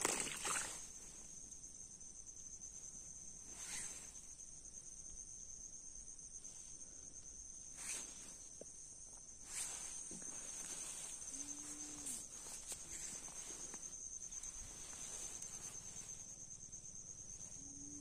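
Steady high-pitched insect trilling, a chorus of crickets or similar insects, with a few faint knocks from handling fishing gear.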